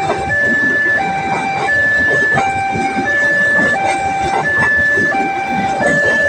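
Railway level-crossing warning alarm sounding a loud electronic two-tone pattern, switching between a higher and a lower note about every 0.7 seconds, over a continuous low rumble.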